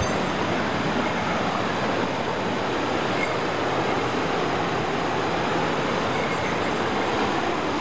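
Hikari Falls waterfall: falling water making a steady, even rushing noise with no breaks.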